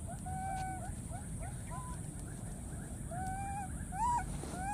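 Baby macaques calling: a string of short rising squeaks, a few a second, with longer drawn-out coos near the start and about three seconds in, and a louder arched cry about four seconds in. A low steady rumble runs underneath.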